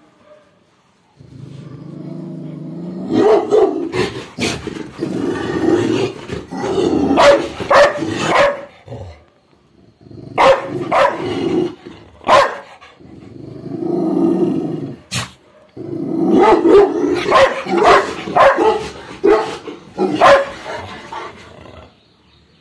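Labrador retriever growling and barking in three bouts, each low growl building into a run of sharp barks, with short pauses about nine and fifteen seconds in.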